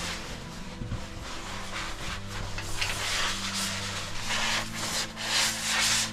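Clothing and body scraping against cave rock while squeezing through a tight passage, in uneven bursts of scuffing.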